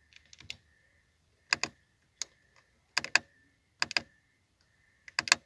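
Rotary control knob of a Pioneer MIXTRAX car CD receiver clicking as it is turned and pressed through the subwoofer settings: sharp clicks, often in close pairs, about once a second.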